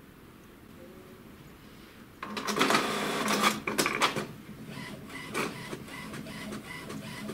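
HP Smart Tank 513 inkjet all-in-one starting a copy job. After about two seconds of quiet, its mechanism starts with a loud burst of whirring and clatter about two seconds in. It then settles into a steady motor hum with a regular light ticking, about three ticks a second, as the paper is drawn in.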